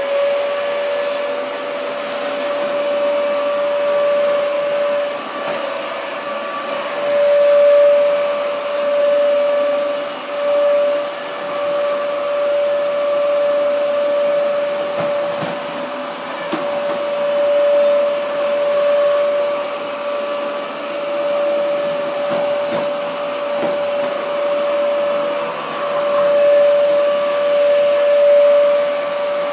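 Vacuum cleaner running steadily with a high whine, its loudness swelling and easing as it is worked over the floor.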